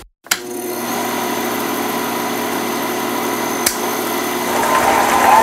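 Cinema film projector running with a steady mechanical whir and constant hum, with a single click about two-thirds of the way through. Near the end a cinema crowd starts cheering and whistling as the film begins.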